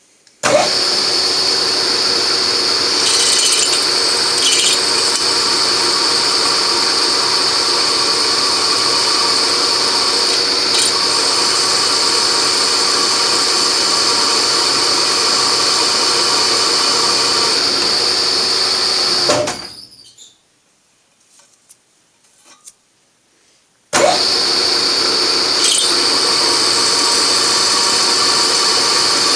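Milling machine spindle driving a 3.5 mm drill into a broken titanium wheel screw, running steadily with a high whine. It starts about half a second in, stops and winds down after about 20 seconds, and starts up again a few seconds later.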